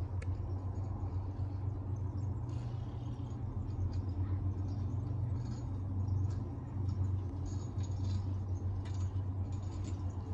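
A steady low rumble runs throughout, with faint high ticks scattered here and there.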